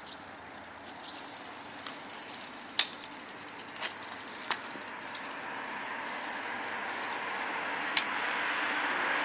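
An approaching vehicle, its steady noise growing louder, with a few sharp clicks and chirps on top; the loudest click comes near the end.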